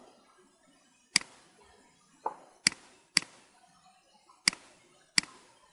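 Computer mouse button clicking: five short, sharp clicks at uneven intervals, about half a second to a second and a half apart.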